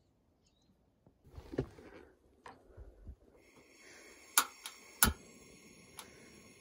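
Twin-burner cartridge gas camping stove being lit. A few knocks as it is handled, then a steady gas hiss starts about three seconds in, and four sharp igniter clicks follow, the loudest about five seconds in.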